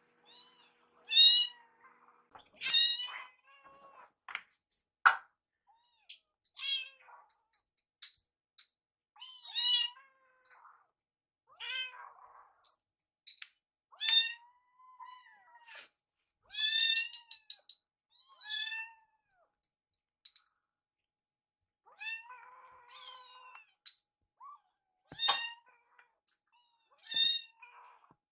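Two young kittens meowing over and over in short, high-pitched calls, begging for food. A few sharp clicks or knocks come in between, one of the loudest about five seconds in.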